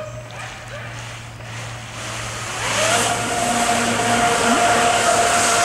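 Electric jet surfboard's jet drive spinning up about halfway through: a whine rises, then holds as a steady high whine over rushing water spray as the board gets under way.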